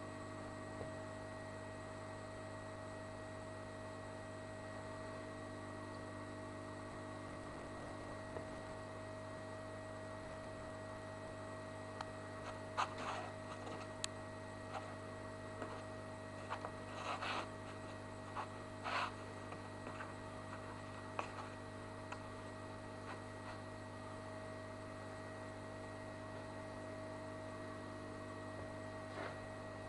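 Steady electrical hum made of several constant tones, with a cluster of brief clicks and scratchy noises about halfway through and one more near the end.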